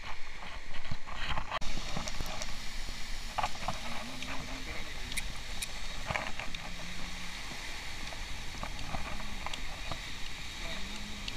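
Steady outdoor background noise with a low rumble, scattered small clicks from hands handling gear, and faint distant voices.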